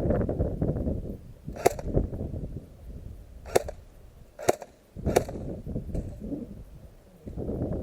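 Four sharp single airsoft gun shots spread over a few seconds, with low rustling and handling noise in between.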